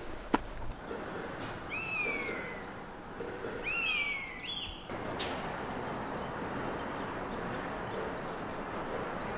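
A sharp tap just after the start, then two shrill bird calls, each a short falling whistle, about two and four seconds in. After that a steady outdoor hiss, with faint high chirps near the end.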